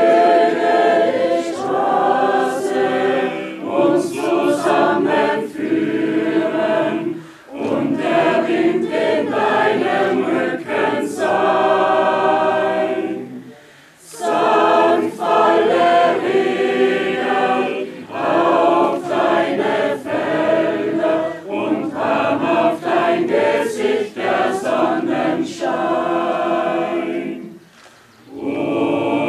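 A mixed choir of men's and women's voices singing a song together in phrases, with brief breaks between phrases.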